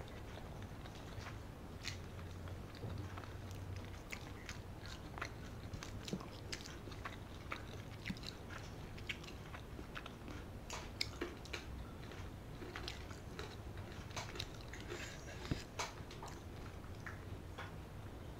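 A person chewing and biting, eating rice and curry by hand: a steady run of many short clicks and mouth noises throughout, with a few louder ones.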